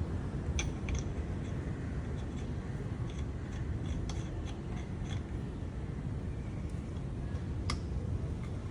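Scattered light metallic clicks of lug nuts and wrench being fitted onto the wheel studs of a newly mounted spare tyre, over a steady low outdoor rumble.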